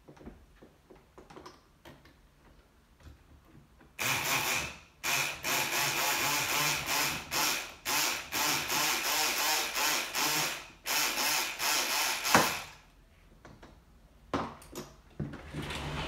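Kronos electric pick gun running in a series of short bursts, about ten in a row, starting about four seconds in, as it is worked in a patio door lock cylinder to pick it open. A sharp click comes near the end of the bursts and is the loudest sound.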